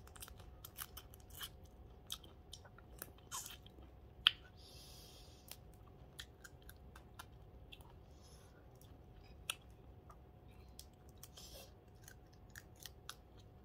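Close-up eating of crab: shell cracking, chewing and sucking meat from the pieces, a run of small crackles and clicks with a few short sucking hisses. One sharp crack a little over four seconds in is the loudest.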